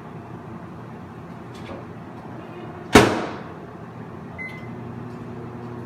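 A steady low hum with a sharp, loud knock about three seconds in, and a brief faint high tone a little after.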